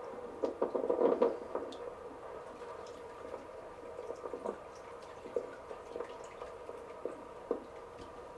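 Faint drips and small splashes of water over a steady hum, with a short busier patch of splashing about a second in and scattered small clicks after.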